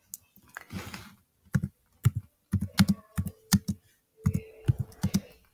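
Computer keyboard typing: a quick, uneven run of keystrokes as a short chat message is typed.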